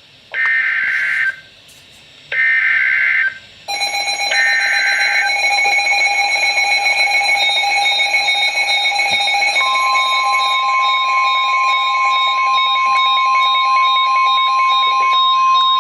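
NOAA Weather Radio emergency alert on a Midland WR-301 weather radio. It opens with three short screeching digital data bursts about a second apart, the SAME header of the warning. From about four seconds in the radio's own loud, multi-tone alarm sounds, and about ten seconds in the steady warning alarm tone joins it.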